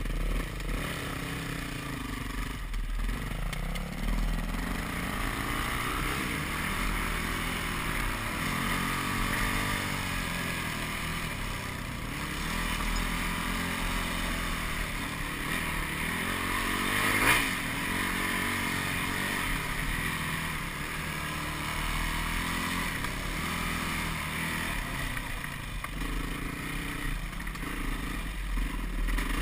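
Yamaha WR450F single-cylinder four-stroke dirt bike engine running under way, its pitch rising and falling with the throttle. About halfway through there is a brief thump.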